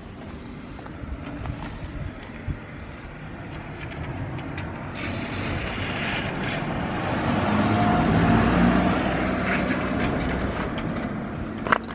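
A motor vehicle engine running, swelling louder to a peak about eight seconds in and then easing back, with a short sharp click near the end.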